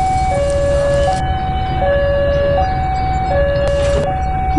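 Level-crossing warning alarm sounding a steady two-tone signal, high and low notes alternating about every three-quarters of a second. Under it is the low rumble of a train passing close by: a CC201 diesel locomotive hauling passenger coaches.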